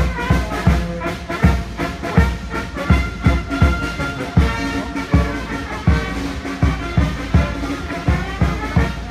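Brass band playing the national anthem, with a steady drum beat under the melody.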